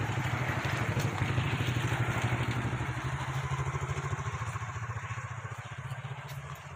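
An engine running with a rapid, even pulse, growing a little louder over the first couple of seconds and then slowly fading.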